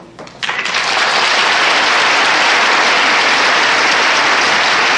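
Studio audience applauding. The applause breaks out suddenly about half a second in and stays at a steady level.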